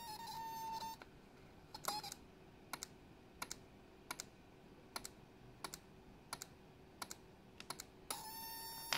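A small 12 V automotive-style relay in a DIY flasher circuit clicking on and off in a steady rhythm, a double click about every three-quarters of a second, as it switches an indicator bulb. A 1000 µF timing capacitor sets this slower blink rate. A steady high whine is heard in the first second and again near the end.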